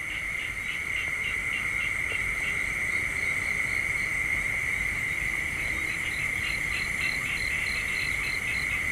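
Night chorus of crickets: a steady high trill, with a second caller chirping about four times a second that comes in twice, once at the start and again in the second half.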